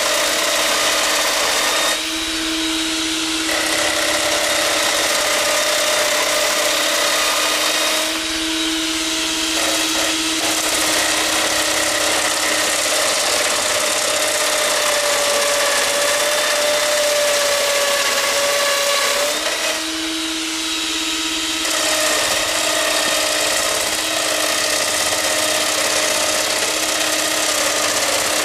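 Wood router on a homemade router lathe cutting a spinning hardwood stick down to round: a steady high motor whine over the noise of the bit chewing the wood, dipping briefly three times.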